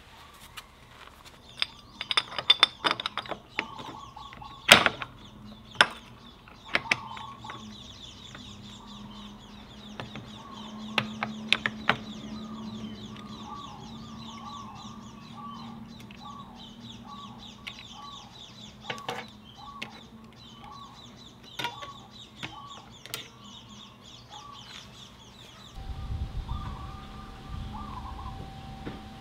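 Sharp metallic clicks and clanks of scooter rear drum brake shoes and their return springs being handled and fitted onto the brake backing plate, the loudest about five seconds in. Birds chirp repeatedly in the background throughout.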